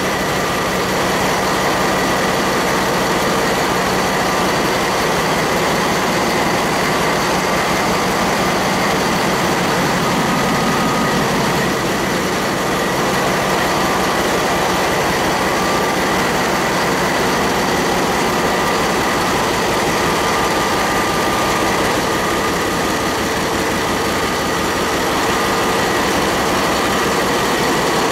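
GE 7FDM12 twelve-cylinder medium-speed marine diesel, a ferry's #2 main engine, running steadily at about 660 rpm, heard up close in its engine room. A steady high whine sits over the engine's din.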